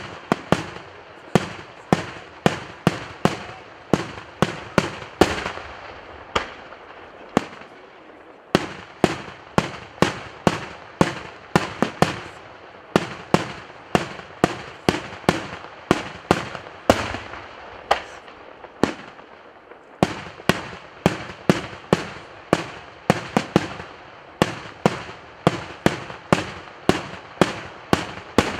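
Daytime aerial firework shells bursting in a rapid, steady series of sharp bangs, about two to three a second, with short breaks about eight and nineteen seconds in.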